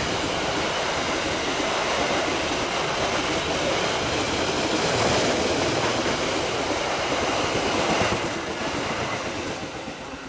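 Passenger train coaches passing close by at speed: a steady rumble and rattle of wheels on rail that fades away from about eight seconds in as the last coach goes by.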